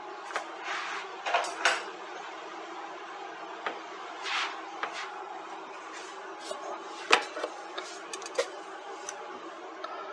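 Scattered light clicks and knocks of a portable shortwave radio being handled on a wooden cutting board, the sharpest knock about seven seconds in, over a steady background hum.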